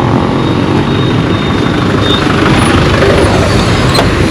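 Road traffic at a junction: a motor vehicle's engine running close by over general road noise.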